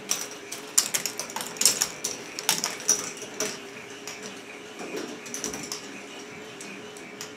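K'nex ball machine running: plastic balls clicking and clattering irregularly along the plastic track and elements, over a steady motor hum from the machine's lifts. The clatter is busiest in the first few seconds, thins out in the middle and picks up again at the end.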